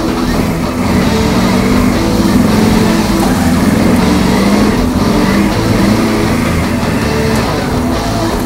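A Can-Am Outlander 1000 ATV's V-twin engine running as the tracked quad drives and pushes through snow, mixed with background music.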